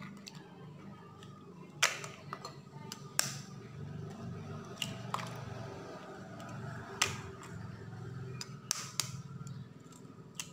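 Scissors snipping, a handful of sharp separate clicks at uneven intervals, over a faint low hum.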